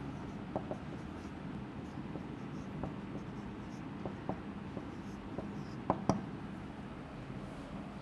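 Marker pen writing on a whiteboard: short scratchy strokes and light taps, the sharpest pair of clicks about six seconds in, over a steady low room hum.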